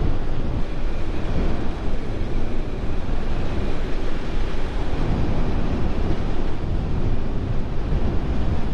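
Steady wind rush on the microphone of a Bajaj Pulsar NS 200 motorcycle at riding speed, with the bike's running noise mixed in underneath.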